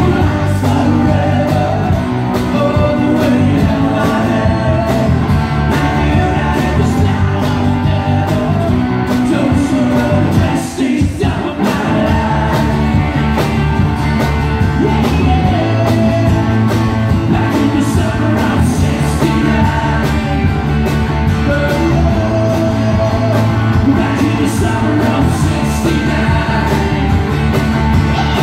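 Live country band playing a song with a singer, electric and acoustic guitars, amplified through the stage sound system. The music breaks off briefly about eleven seconds in and then carries on.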